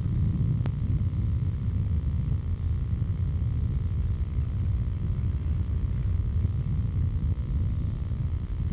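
Wind buffeting the built-in microphone of a camcorder: a steady low rumble that flickers in level, with one faint click about half a second in.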